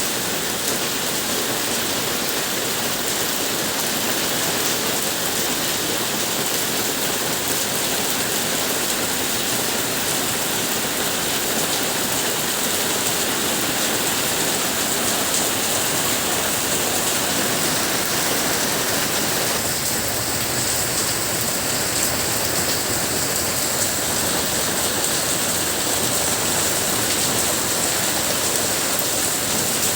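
Monsoon rain falling steadily, a dense even hiss that grows a little fuller about two-thirds of the way in.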